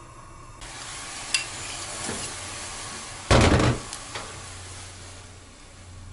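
A spoon stirring milk in an aluminium saucepan on a gas burner, with a steady hiss as the milk heats toward the boil and a few light clicks against the pot. About three seconds in there is one loud knock.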